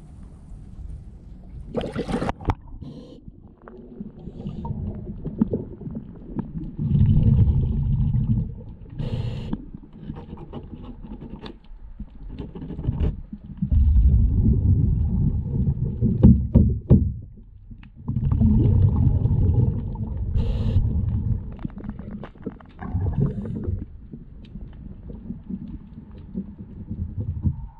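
Underwater sound of a scuba diver's exhaled bubbles, rumbling and gurgling in bursts of two to three seconds every few seconds, with light scratching and clicks of a hand scraper against the boat's painted hull between them. A splash about two seconds in as the microphone goes under the surface.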